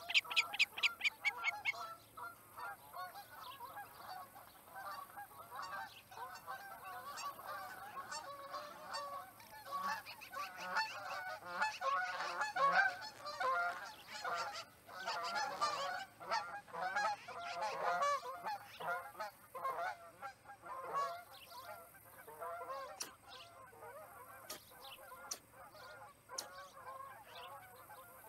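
A flock of geese honking as it flies past, many overlapping calls that build to a peak around the middle and thin out toward the end. In the first couple of seconds, an osprey gives a fast series of high-pitched alarm chirps.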